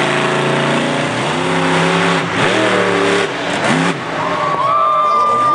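Monster truck engine revving hard, rising and falling in several quick revs, then holding a high pitch near the end.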